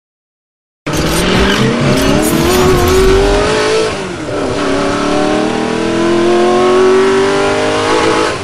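Car engine accelerating hard, starting suddenly about a second in: its note climbs steadily, drops at a gear change about four seconds in, then climbs again.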